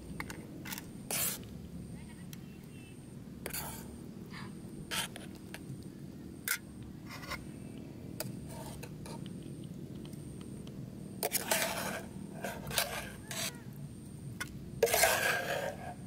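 Metal fork and aluminium camping pot scraping and clinking against a plate as instant noodles are tipped out and mixed. Scattered short clicks and scrapes, with longer scrapes about eleven seconds in and again near the end.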